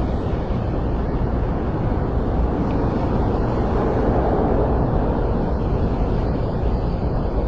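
Steady rumbling ambient noise, swelling slightly about halfway through.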